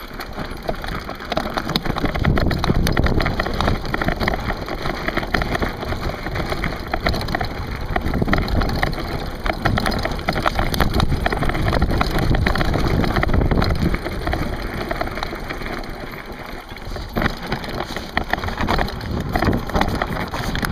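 Mountain bike tyres crunching and rattling over a loose, rocky trail, a dense stream of small clicks over a low rumble.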